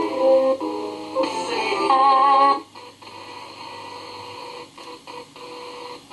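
Spirit box sweeping through radio stations: chopped fragments of broadcast music and singing, one with a wavering tone, for about two and a half seconds, then quieter static with a few faint clicks.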